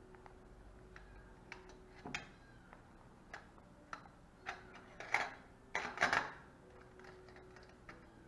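Steel surgical instruments (hemostats and forceps) clicking and clinking as they are handled, about a dozen separate ticks, with a cluster of louder clinks about five to six seconds in.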